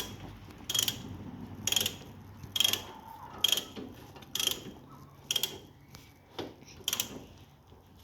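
Ratchet wrench clicking in regular strokes, about one click a second, as a brake caliper bolt is tightened.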